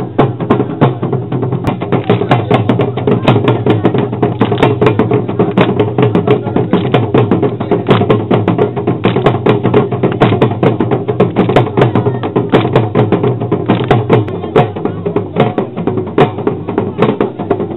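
Live percussion-led dance music: a fast run of sharp, clicking strikes over steadier pitched instrument sound, without a break.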